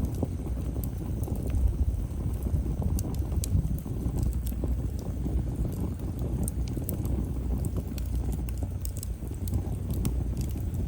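Wood fire burning: a steady low rush of flames with scattered sharp crackles and pops from the burning firewood.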